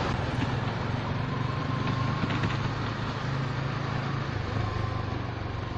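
Motorcycle engine running steadily while under way: a low, even hum under a haze of wind and traffic noise.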